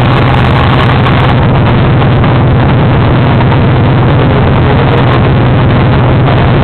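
Automotive sound system at very high volume holding a steady low bass tone, heavily distorted as the recording overloads.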